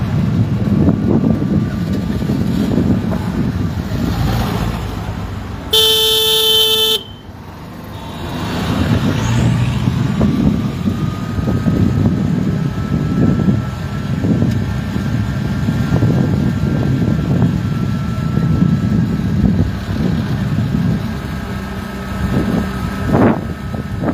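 A vehicle's steady low rumble of engine, road and wind noise while driving down a street. About six seconds in, a car horn gives one loud honk lasting just over a second, cut off sharply.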